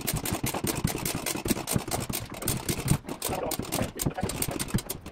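Cordless impact driver hammering rapidly as it drives a long screw through a wooden stair stringer into the header, with a brief let-up about three seconds in.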